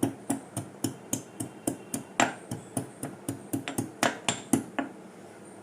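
A pestle pounding fresh ginger in a mortar, in quick repeated knocks about four a second, stopping about four and a half seconds in.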